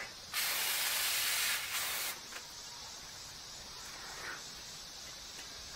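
Aerosol insecticide can spraying in one hissing burst of about two seconds.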